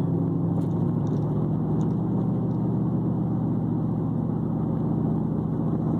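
Steady low drone of a pickup truck driving on the road, heard from inside the cab: engine and road noise from its big tyres. It carries the vibration and back-tyre noise that the driver says the shop failed to fix.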